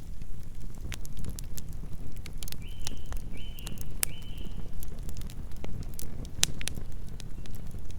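Campfire burning, with a steady low rumble and frequent sharp crackles and pops from the burning wood. About two and a half seconds in, three short high calls from an animal sound in the background.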